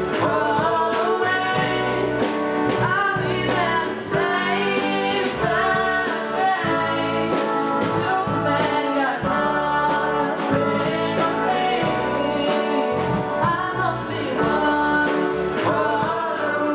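A school band playing a song live: girls singing over digital piano and guitar, with a steady beat.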